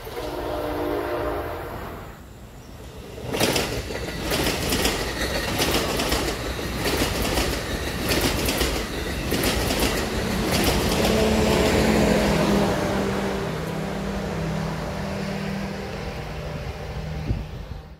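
Bilevel NJ Transit commuter train passing close, its wheels clattering in a rapid regular rhythm over the rail joints. After it, a steady droning tone with a lower hum carries on and fades near the end.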